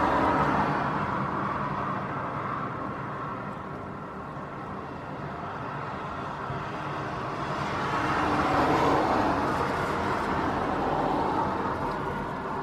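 Airliner's engines running steadily on approach, heard through strong gusty wind buffeting the microphone; the sound swells about eight to nine seconds in.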